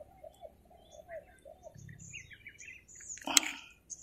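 Birds calling: a run of low arching notes in the first second and a half, with short high chirps throughout. A brief sharp rustle close by, just past three seconds, is the loudest sound.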